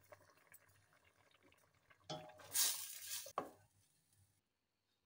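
A spoon stirring and scraping in a stainless steel pot of simmering gravy, with a short run of scrapes and clinks against the pot from about two seconds in. The sound then fades and cuts out near the end.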